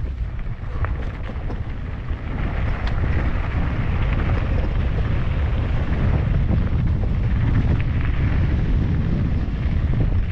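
Wind rumbling on the microphone of a camera carried on a moving mountain bike, with a few faint clicks and rattles from the bike on the trail. It grows louder about two seconds in and then holds steady.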